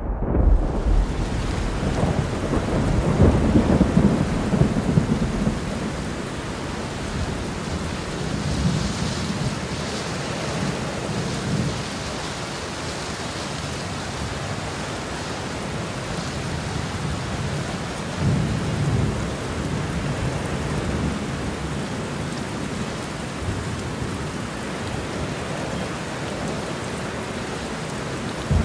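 Steady rain with low rumbles of thunder rolling in several times, the strongest a few seconds in.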